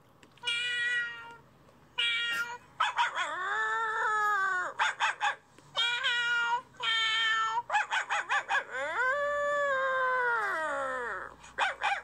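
Recorded cat meows played back to a dog: a string of short meows and two long meows that rise and then fall in pitch, with quick runs of clicks between them.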